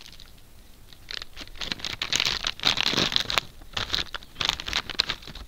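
Plastic chips packet crinkling and tearing as it is opened, in irregular rustling strokes that are heaviest in the middle.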